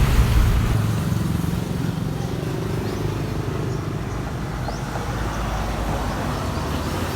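A motor vehicle engine running steadily, a low even rumble.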